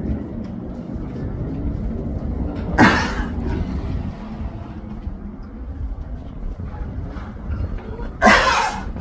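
A horse coughing: two short, sudden coughs about five seconds apart, which the owner thinks come from something stuck in its throat.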